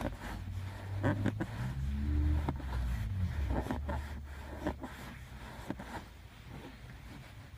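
Kia Ceed driver's seat creaking and clicking under shifting weight, over a low rumble that fades about two-thirds of the way through. Brief squeaks come about two to three seconds in. The creaking started after the seat upholstery was replaced.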